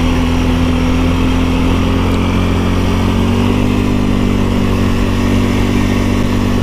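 ATV engine running steadily while riding along a trail, its pitch shifting up slightly about halfway.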